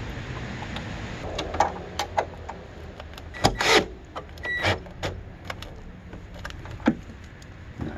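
Fender bolt being fastened with a wrench and a cordless drill: a string of metal clicks and knocks, with one short louder burst about three and a half seconds in, over a steady low hum.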